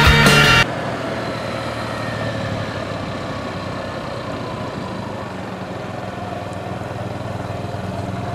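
Background music cuts off about half a second in, leaving a Honda scooter's small engine idling steadily.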